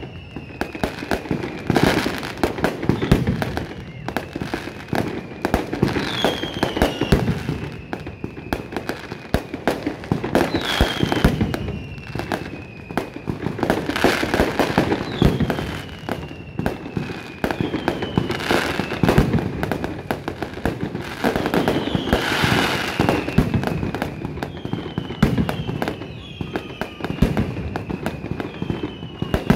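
Fireworks display: a dense, unbroken run of bangs and crackling from aerial shells bursting overhead, with falling whistles that come back every few seconds.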